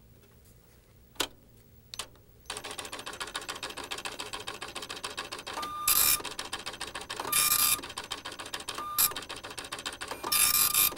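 IBM Proprinter dot-matrix printer printing a test page after being switched on. A couple of sharp clicks come first; from about two and a half seconds in there is a fast, dense rattle of printhead strikes, with four louder bursts about one and a half seconds apart.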